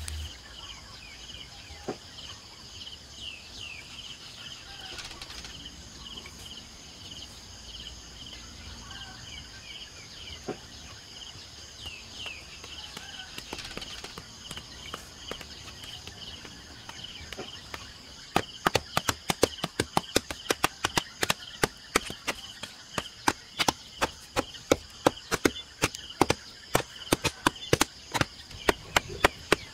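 Birds chirping over a steady high-pitched drone, then from about two-thirds of the way in a digging tool chopping repeatedly into hard, dry earth, sharp strikes a couple of times a second.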